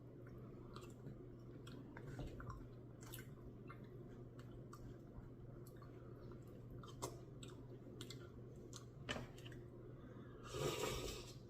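Faint chewing and mouth sounds of a person eating a mouthful of Blizzard ice cream with gummy worms, with scattered small clicks over a steady low hum. A brief louder noise comes near the end.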